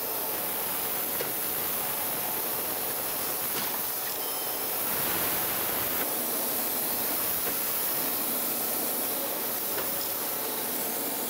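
Surface grinder taking a light finishing pass across the steel top of a magnetic chuck with a freshly dressed wheel: a steady grinding hiss, mixed with the spray of the coolant mist nozzle.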